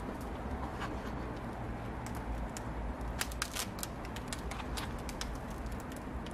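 Sharp, irregular crackles and clicks from a charcoal grill of glowing embers and its metal chicken skewer, over a low steady rumble, starting about two seconds in.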